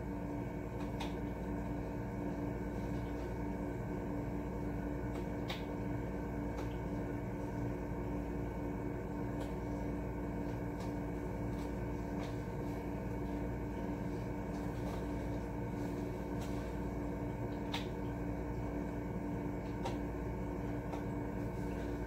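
Steady electrical hum made of one strong tone with several fainter ones over a low drone, running unchanged, with a few faint ticks.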